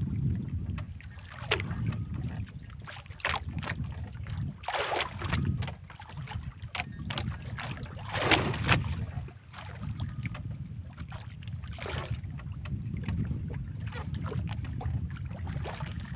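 Sea water slapping and splashing irregularly against a bamboo-outrigger fishing boat, over a steady low rumble of wind on the microphone. The loudest splashes come about eight seconds in.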